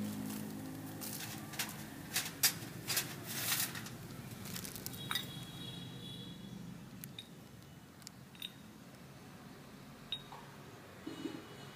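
Handling noise: a run of rustles and clicks in the first few seconds as the parts and the plastic-bagged replacement drive belt are picked up and moved, then only light scattered ticks.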